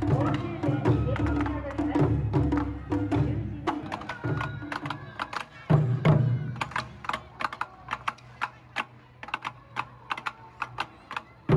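Japanese taiko drums played by an ensemble, deep beats in fast succession. About halfway through the drumming gives way to a quieter, sparser run of sharp wooden clicks in a steady rhythm.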